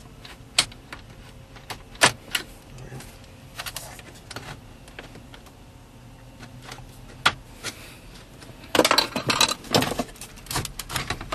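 Scattered sharp clicks and knocks of the radio's release tabs and housing as the head unit is worked out of the dashboard, with a burst of rattling clatter about nine seconds in.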